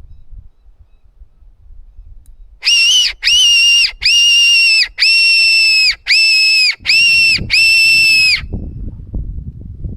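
Silva fox call, a hand-blown predator whistle, sounded in seven short, high squeals of about half a second each in quick succession: a distressed-prey imitation meant to lure a fox or feral cat in. Low rustling follows the last squeal.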